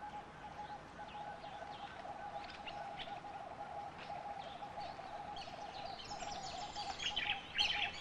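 Quiet outdoor ambience of wild birds: a continuous, rapidly pulsing trill at one steady pitch, with scattered higher chirps that get busier near the end.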